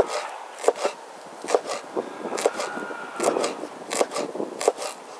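A series of irregular light knocks and scrapes, one or two a second.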